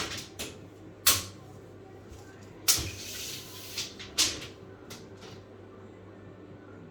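A steel tape measure being worked to measure a wall's height: several sharp clicks and knocks, with a short rasp of the blade sliding about three seconds in.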